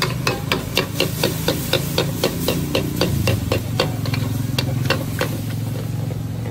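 Metal wok spatula scraping and clanking against a steel wok while stir-frying noodles, at a quick even pace of about four strokes a second, slowing and stopping about five seconds in. Underneath is the steady rush of the high-flame gas wok burner.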